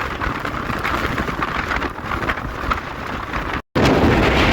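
Strong wind and rain on a tornado's back side, a loud, continuous rushing and buffeting on the microphone. It cuts out suddenly for a moment near the end and comes back louder.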